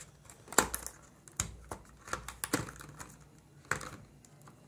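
Irregular sharp clicks and taps of a small cardboard product box being handled, fingers working its end flap open.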